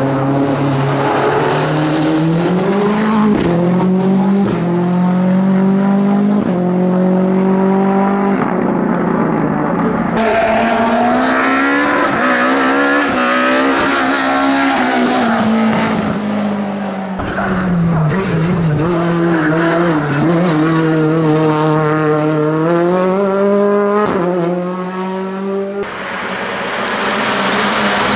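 Race car engines at full throttle on a hillclimb, the revs climbing and dropping repeatedly with gear changes.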